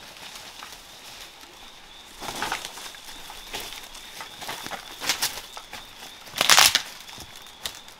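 Footsteps crunching through dry leaves and bamboo litter: irregular crackles, the loudest crunch about six and a half seconds in. A faint steady high-pitched tone sounds behind them.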